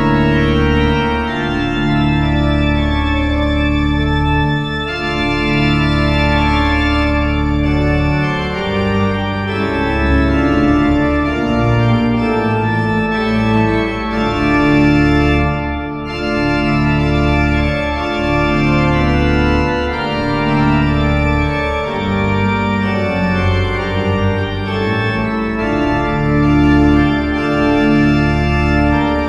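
Church pipe organ music played on a Hauptwerk virtual (sampled) pipe organ: full sustained chords over a deep pedal bass, the chords changing every second or two.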